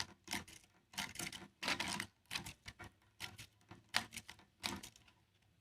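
Irregular clicks and taps of hard parts knocking together, in uneven clusters, as in handling or working on small fan parts.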